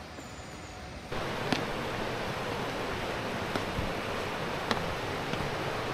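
Steady rushing water in a gorge, which steps up suddenly to a louder rush about a second in, with a few sharp ticks over it.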